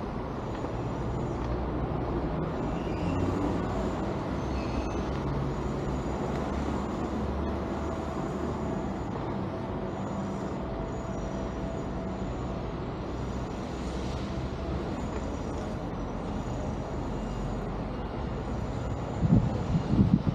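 Steady low rumble of road traffic, with louder uneven low bumps near the end.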